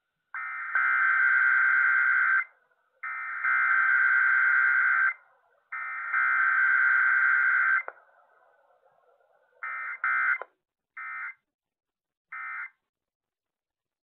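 Emergency Alert System SAME data bursts broadcast over the radio for a required weekly test: three warbling digital-tone bursts of about two seconds each, a second apart, followed by three short end-of-message bursts.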